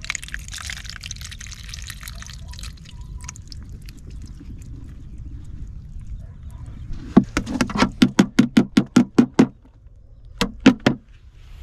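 Water pouring out of a plastic container into a plastic colander and draining through it, straining a catch of whitebait. About seven seconds in comes a quick run of about a dozen sharp knocks, roughly five a second, then two more near the end, as the plastic colander is knocked against a bin to shake the whitebait out.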